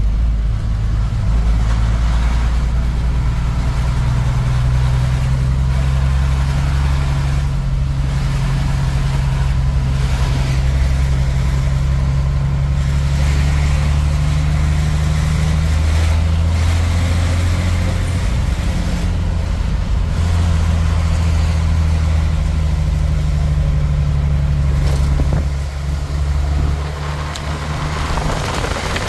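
Truck engine running while driving, heard from inside the cab as a loud, steady low drone with the truck laden with a ton of steel. The engine note changes a couple of times, breaking off about halfway through and returning a few seconds later, and dips briefly near the end.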